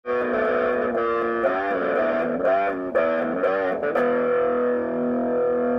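Intro music on an electric guitar: a short riff of notes that bend up and down in pitch, ending about four seconds in on a held chord that rings on.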